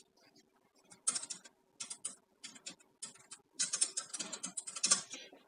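Computer keyboard typing: a string of light key clicks, spaced out at first and coming faster from about three and a half seconds in, stopping just before the end.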